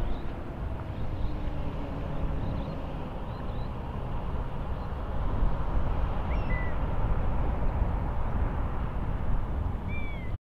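Steady low outdoor rumble, with a few faint high bird chirps in the first seconds, a short chirp about six seconds in, and a brief down-slurred call near the end.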